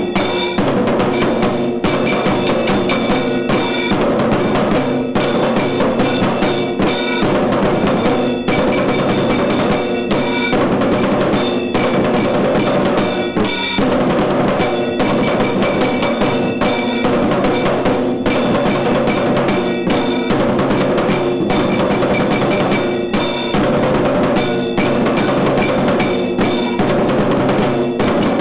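Tiru Kailaya Vadyam temple music ensemble playing: dense, fast drumming without a break, over steady held tones.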